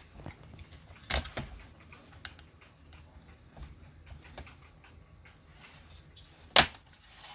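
Plastic clips of a laptop's bottom cover snapping loose as a plastic pry tool works along the seam: a few sharp clicks about a second in, light ticks, and one loud snap near the end.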